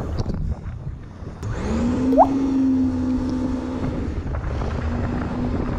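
Low rumble of wind on the microphone, then an engine comes in about one and a half seconds in. It rises quickly in pitch and settles into a steady run, with a short rising whine just after it catches. The engine grows quieter for the last couple of seconds.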